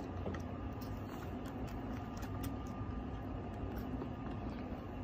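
A newborn kitten suckling at a milk bottle: faint, irregular little clicks over a steady low background hum.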